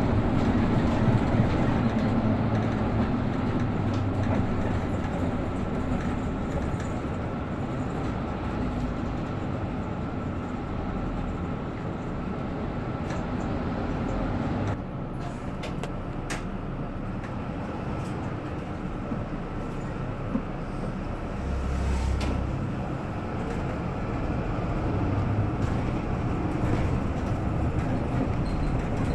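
Cabin noise inside a Mercedes-Benz Citaro K C2 city bus under way: the engine is running, with road and rattle noise. The sound drops a little about halfway through, followed by a few sharp clicks.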